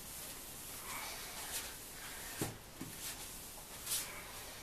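Cloth wiping a wet plastic headlight lens dry: faint rubbing and swishing strokes, with two soft knocks about halfway through and a short swish near the end.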